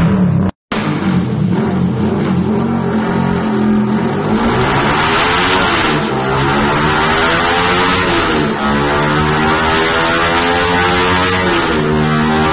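Underbone motorcycle's single-cylinder four-stroke engine revved hard on a chassis dyno through an aftermarket exhaust, pitch climbing through each gear and dropping back at each upshift, about three times.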